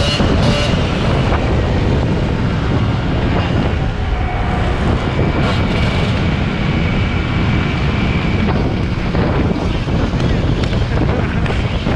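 Heavy wind buffeting the microphone of a motorcycle in motion, with the bike's engine running beneath it.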